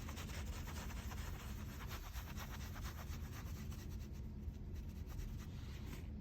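Faint rustling and light scratching close to the microphone, with many small ticks over a low steady rumble.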